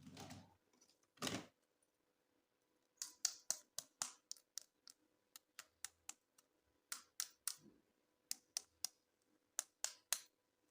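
Hard plastic toy packaging being handled: a short rustle and a single knock near the start, then runs of quick, sharp clicks and taps, several a second in clusters with short pauses.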